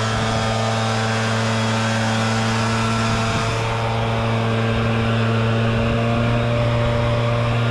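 Engine running steadily at one constant speed, a continuous even hum.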